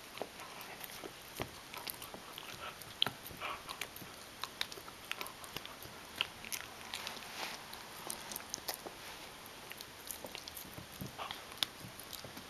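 Shetland sheepdog gnawing a chew bone: irregular clicks and crunches of teeth on the chew, a few per second, briefly sparser about ten seconds in.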